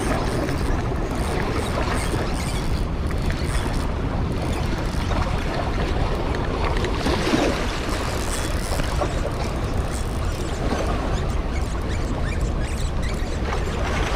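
Steady rush of turbulent water pouring out below the open spillway gates, with a low wind rumble on the microphone.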